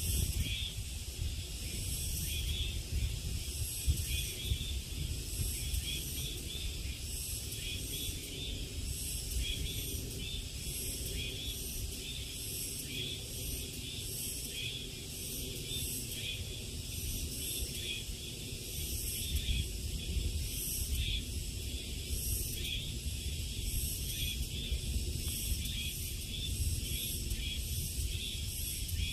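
Summer insect chorus in forest: a high-pitched buzzing that pulses in a fast, even rhythm, with a low rumble underneath.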